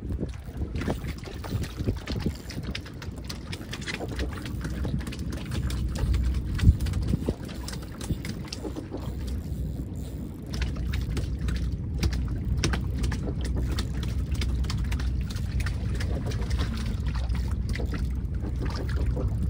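Water sloshing against a boat's hull under a low wind rumble, with a fishing reel ticking as a hooked fish is played. One sharp knock comes about seven seconds in.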